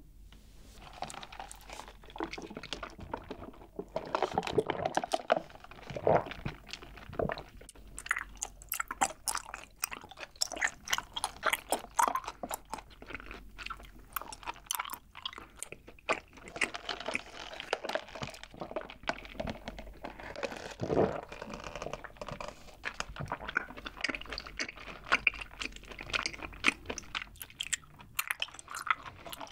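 Close-miked chewing: wet, sticky mouth sounds with many small clicks and smacks, a few of them louder.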